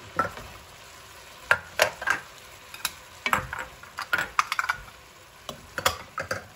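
Cabbage and meat being stirred and tossed in a pot with a cooking utensil: irregular scrapes and clacks against the pot over a faint sizzle of frying.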